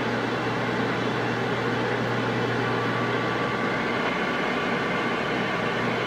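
Galaxy CB radio receiving on an open channel: a steady hiss of static and hash with faint, steady whining tones running through it.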